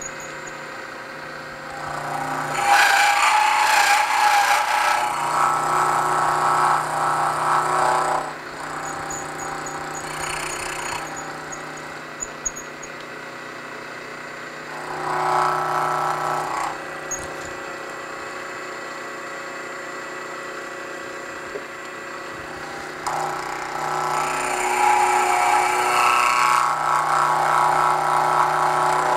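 Vertical milling machine running a 7/8-inch four-flute high-speed-steel end mill, taking a side cut down the full height of a part. The cutting noise swells three times: from about two seconds in for some six seconds, briefly around fifteen seconds, and again from about twenty-three seconds on, over the machine's steady running between.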